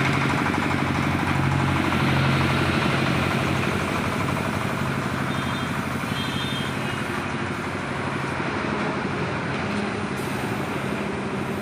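Air compressor running steadily with a low hum, feeding a spray gun that hisses as polish is sprayed onto a wooden bed headboard.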